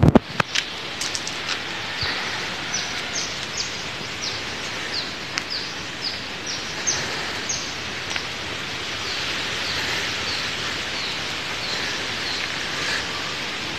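A bird repeats a short, high, downward-slurred chirp about twice a second over a steady hiss of forest background. The chirps pause briefly about eight seconds in, then carry on more faintly. A few knocks sound at the very start.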